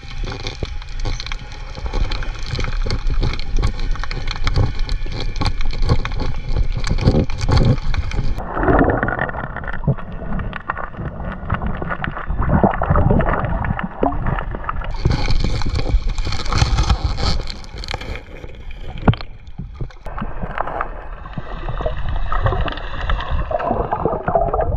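Sea water sloshing and gurgling around a camera while snorkelling. The sound goes dull for several seconds at a time, then turns bright and splashy again.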